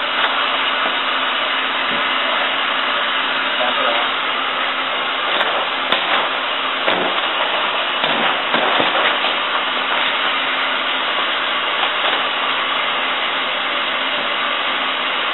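Electric heat gun running, a steady rushing blower noise, with a few faint knocks around the middle.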